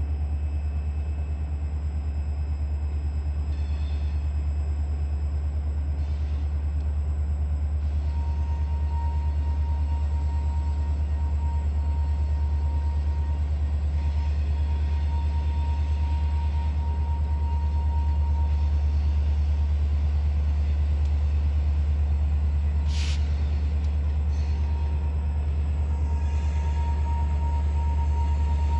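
Freight train rolling by with a steady low rumble. A faint, thin squeal comes and goes from about eight seconds in, and there is a brief hiss about twenty-three seconds in.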